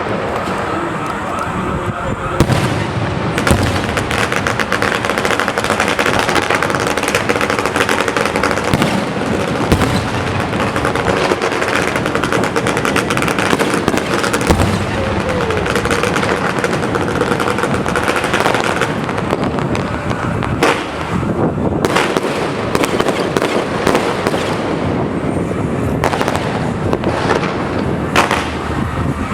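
Fireworks display going off: a dense, continuous run of rapid bangs and crackling, loud throughout.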